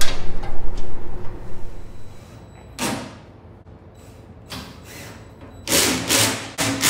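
Cordless drill-driver run in short bursts, driving the bolts that fasten the sander to its stand. There is one brief burst about three seconds in, then two louder bursts near the end.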